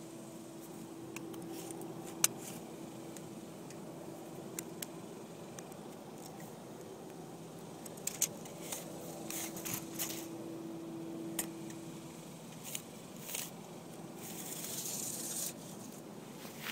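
Handling noise: fingers rubbing and scraping right against the microphone, with scattered small clicks and a faint steady hum that stops about twelve seconds in. A short rustle comes near the end.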